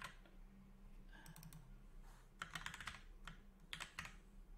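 Faint computer keyboard typing: several short runs of keystrokes with pauses between them, over a low steady hum.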